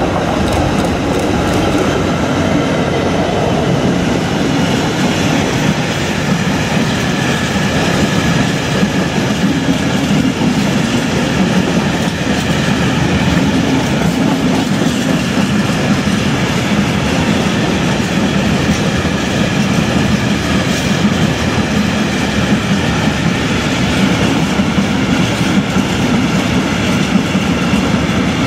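Freightliner Class 66 diesel locomotive and its long train of loaded hopper wagons passing close by, a steady, loud rumble and rattle of wagon wheels on the track that keeps up evenly as wagon after wagon goes by.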